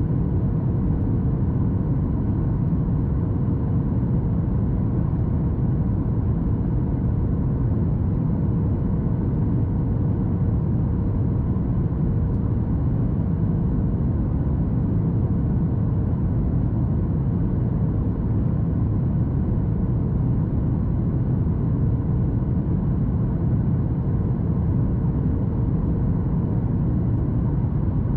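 Steady cabin noise of a Boeing 737 MAX 8 in flight: the CFM LEAP-1B engines and airflow make an even low rumble, with a faint steady hum above it.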